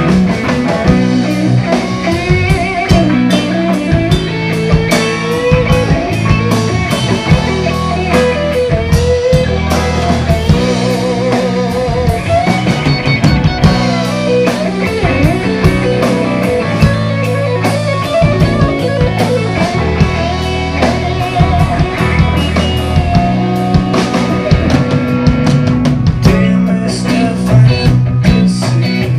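Live rock band playing an instrumental: electric guitars carry a melody with wavering, bending notes over bass guitar and drum kit.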